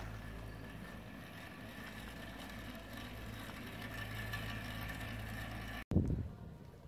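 Steady low machine hum, as of a motor running without change. It breaks off sharply near the end and gives way to a brief loud bump.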